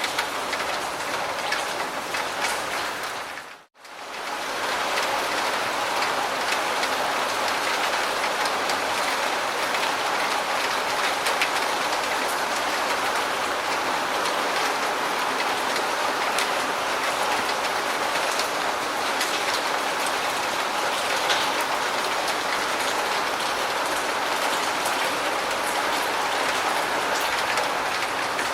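Steady heavy rain falling, a dense hiss with fine pattering drops. About three and a half seconds in, the sound fades briefly to silence, then swells back.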